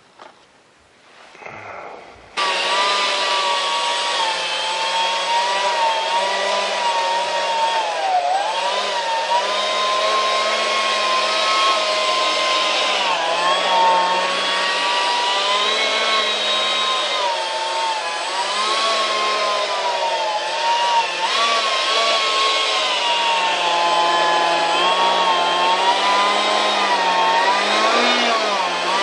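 Detrum 70 mm electric ducted fan starting abruptly about two seconds in and running with a loud whine whose pitch rises and falls as the throttle is worked, climbing near the end.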